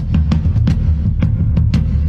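Instrumental opening of a recorded worship song: a steady beat of short percussive hits, about three or four a second, over a heavy, deep bass.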